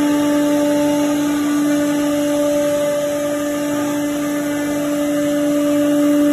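Four-head CNC router spindle running steadily as it cuts a wood panel: a steady whine over a continuous rushing noise.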